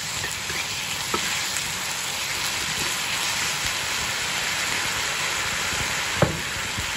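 Julienned vegetables with sauce sizzling steadily as they are stir-fried in a hot nonstick wok, with a spatula clicking against the pan a couple of times, the sharpest knock near the end.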